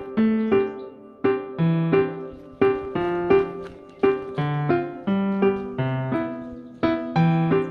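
Background music: a solo piano playing a gentle, evenly paced melody over low bass notes.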